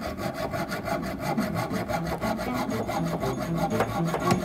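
Hacksaw cutting through a metal water-heater pipe in fast, steady back-and-forth strokes.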